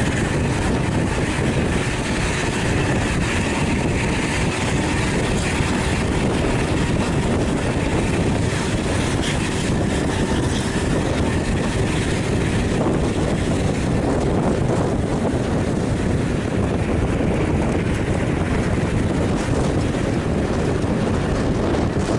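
Steady road and wind noise from a vehicle travelling at highway speed, with wind rushing over the microphone.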